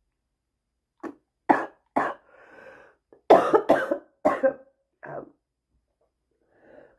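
A person's smoker's cough in a fit: three sharp coughs about a second in, a breath drawn in, then four more coughs, and another breath near the end.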